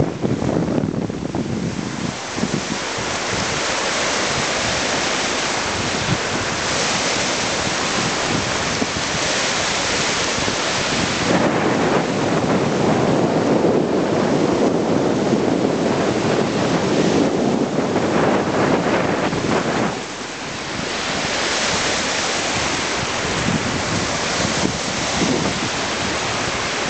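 Wind-driven lake waves breaking and washing over a rocky shore, with strong wind buffeting the microphone in a rough, rumbling roar. The noise drops briefly about three-quarters of the way through.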